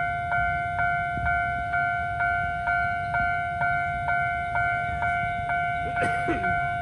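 Railway level-crossing warning bell dinging at an even pace of about two strikes a second, each strike a two-tone electronic ding, over a low rumble.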